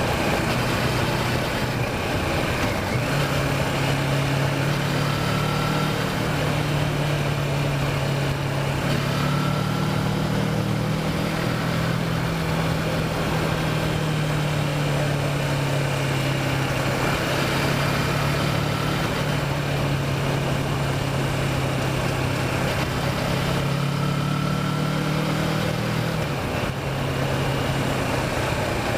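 Kawasaki Versys motorcycle engine running steadily while riding, its pitch shifting up and down a little a few times, with wind and road noise.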